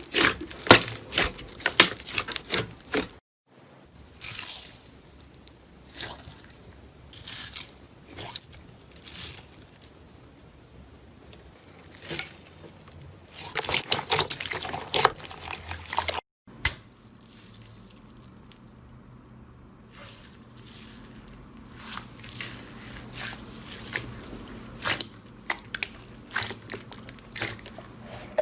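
Slime being squished and pressed, making wet squishing and crackling sounds in uneven bursts, broken twice by sudden brief silences.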